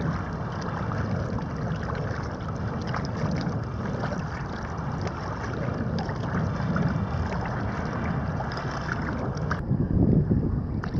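Wind buffeting the microphone, with small waves lapping and sloshing just below it: a steady, rough rush. The hiss in the upper range drops away about ten seconds in.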